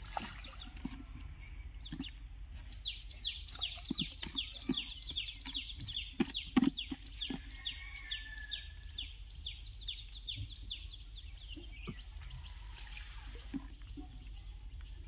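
A bird calling a long run of quick, high, downward-sliding notes, about four a second, starting about three seconds in and stopping about three seconds before the end. Scattered soft knocks sound under it.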